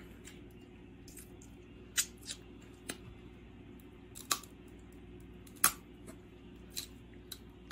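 Crab leg shells being cracked and picked apart: about seven sharp cracks and clicks at irregular intervals, the loudest about two seconds in and again past the middle.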